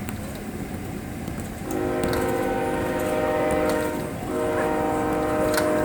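Train horn sounding a chord of several steady tones, starting about two seconds in: one long blast, a short break, then another long blast.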